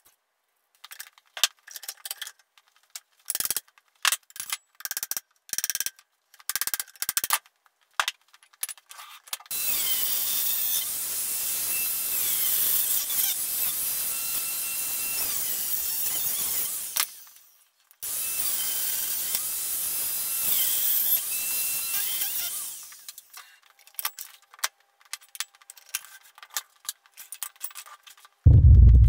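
Metal tools clinking and rattling on the Land Rover axles, then a power tool running in two long spells of about seven and five seconds with a short break between them. More clinks follow, and a heavy thud near the end is the loudest sound.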